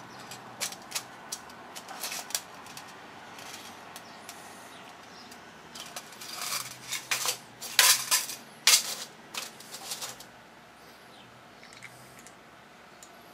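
Light clicks and clinks of small carburetor parts being handled and set down on a workbench, with a busier run of sharper clicks a little past halfway through.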